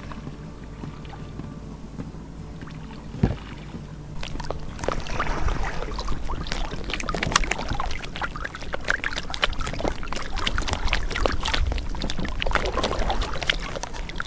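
Lake water lapping and splashing against the side of a small boat close to the microphone, with dense, crackling splashes from about four seconds in. A single knock comes just before.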